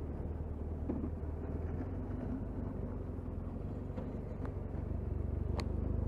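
Motorcycle engine running steadily at low road speed, a low hum with wind and tyre noise, growing slightly louder near the end.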